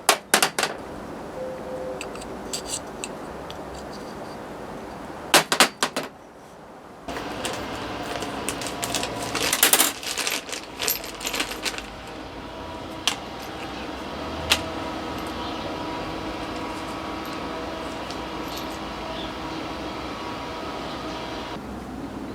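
Sharp metallic clinks and knocks, as of tools and parts being handled. About seven seconds in, a steady mechanical hum with a few fixed tones starts, and it cuts off suddenly near the end.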